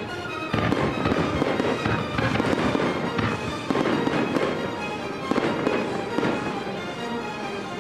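Fireworks going off: a series of sharp bangs and crackles from shells bursting, heard over steady background music.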